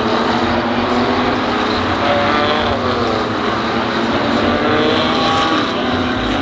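Several BMW M2 Cup race cars running at high revs together, their overlapping engine notes rising and falling in pitch.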